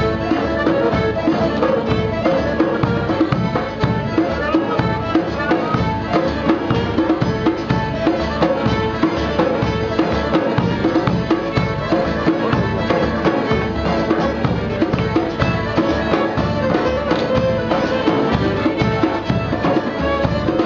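Live folk band playing a dance tune: a large double-headed bass drum struck with a beater keeps a steady beat under fiddle and accordion.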